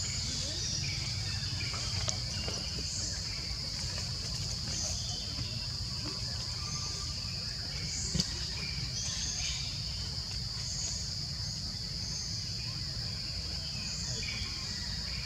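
Insects droning steadily at one high pitch, over a steady low rumble, with scattered short chirps and a single brief click about eight seconds in.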